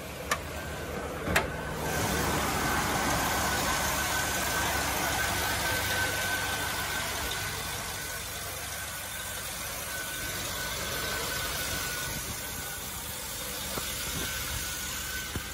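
A couple of sharp clicks as the hood latch is released and the hood raised, then the truck's gasoline V8 idling steadily, heard up close in the open engine bay with a thin steady whine over it.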